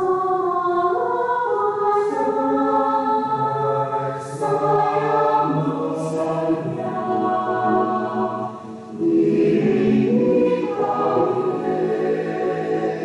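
Mixed youth church choir, women's and men's voices together, singing a hymn in parts in sustained chords. The singing dips briefly and comes back louder about nine seconds in.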